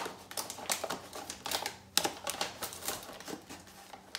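Plastic measuring cup scooping and scraping granulated sugar near the bottom of a paper sugar bag, the bag rustling and crinkling in a quick, irregular series of scratchy clicks.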